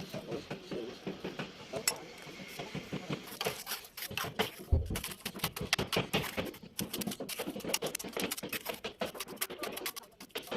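A mason working with hand tools on masonry, giving a rapid run of small scrapes and clicks that grows denser about three seconds in, with one dull thump near the middle.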